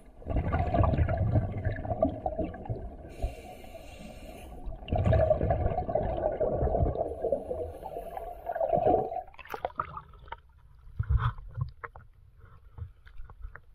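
Scuba diver breathing through a regulator underwater: a rush of exhaled bubbles, a hissing inhale a few seconds in, then a long bubbling exhale that stops about nine seconds in. After that come only scattered small clicks and water noises.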